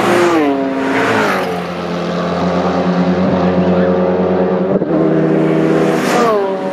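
Racing car engines going past at speed. The engine note drops in pitch as a car passes early on, holds steady through the middle, breaks off briefly, and falls again near the end as another car goes by.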